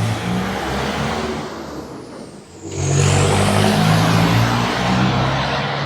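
Loud, close slurping of hot boat noodle soup: two long slurps, the second louder, starting a little under three seconds in.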